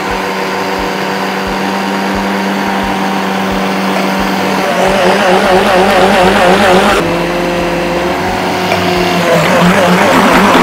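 Food processor motor running, mixing shortcrust pastry crumbs of flour, cold butter and sugar while cold water is added to bring the dough together. Its pitch starts to waver about five seconds in.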